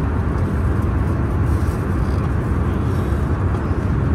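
Steady low rumble of vehicle noise, even throughout with no distinct events.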